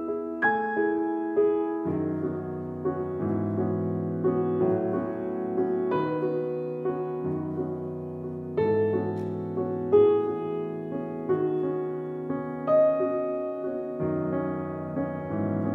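Slow background piano music: single notes and soft chords, struck one after another and left to fade, with low bass notes from about two seconds in.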